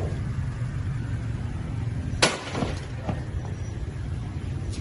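A rock striking a motorcycle: one loud, sharp crack about two seconds in, followed by two lighter knocks, over a steady low rumble.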